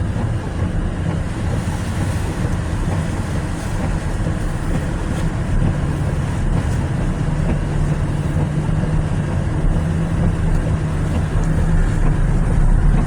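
Car driving: a steady engine and road rumble under an even hiss, with a steady low hum coming in about halfway through.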